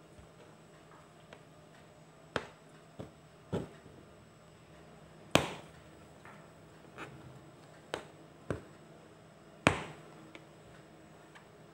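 Aari hook needle punching through stretched embroidery cloth, making sharp taps at irregular intervals, about eight in all, the loudest about five and a half and nearly ten seconds in.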